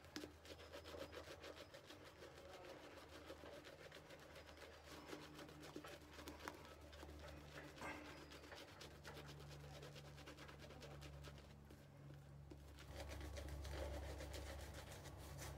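Faint, quick swishing of a 26 mm super-high-density two-band badger shaving brush working soap lather over the face, over a low steady hum; a little louder near the end.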